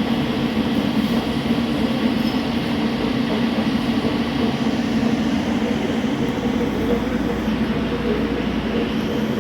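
TIG welding arc on carbon steel, a steady buzzing hiss with no breaks.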